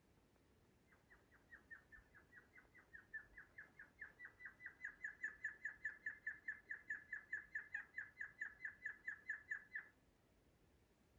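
An animal's call: a long run of quick, high chirps that starts about a second in, grows louder and slightly faster to about six a second, then stops abruptly near the end.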